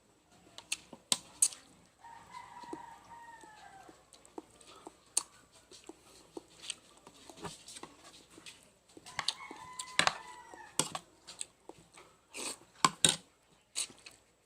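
Close-up eating sounds: sharp crunches and smacks from chewing on chicken bones. A rooster crows in the background twice, about two seconds in and again around ten seconds.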